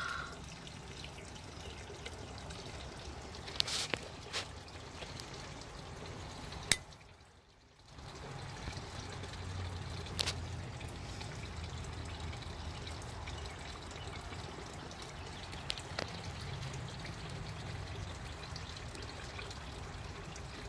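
Small fire of twigs catching from a burning Vaseline-soaked cotton swab inside a brick stove: a steady hiss with a few sharp snaps.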